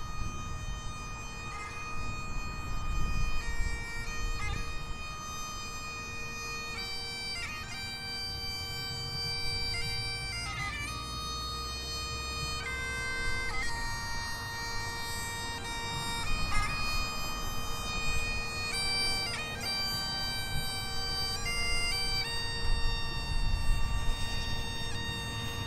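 Bagpipes playing a slow melody over one steady, unbroken drone.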